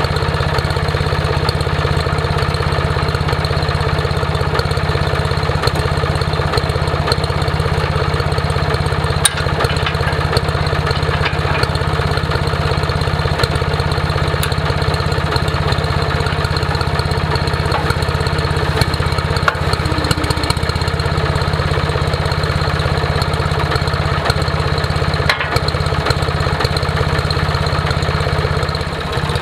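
Case tractor engine idling steadily, with an occasional brief metal clank.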